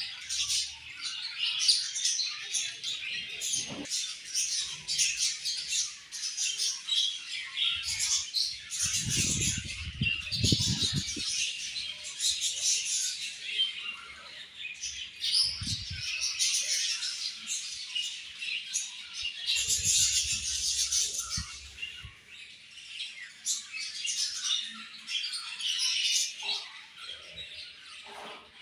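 A flock of budgerigars chattering and chirping continuously in quick, overlapping high calls, with a few brief low rustling bursts now and then.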